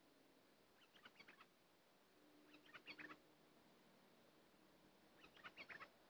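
Caged decoy bulbul (merbah) singing three short bursts of quick, high chirping notes, each under a second long and a couple of seconds apart.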